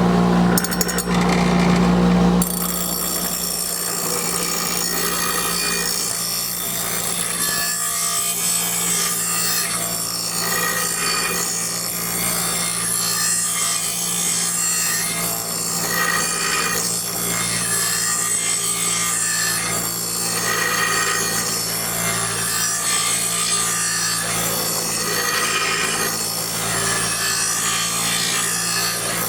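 Hart 6-inch bench grinder running with a steel lawn mower blade held to the wheel: a steady motor hum under a rough, rasping grind as nicks and burrs are taken out of the cutting edge. Louder for the first two seconds or so, then even.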